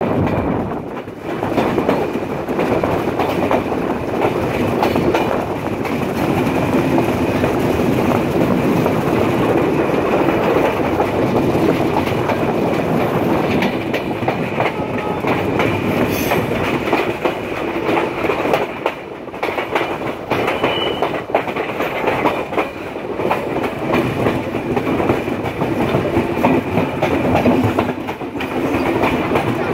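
Bangladesh Railway passenger train running along the line, heard from a carriage window: a steady rumble with the continual clickety-clack of wheels over the rails.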